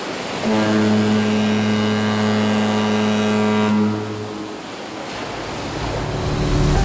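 A ship's horn gives one long, steady blast lasting about three and a half seconds. After it a rushing noise swells, and music starts at the very end.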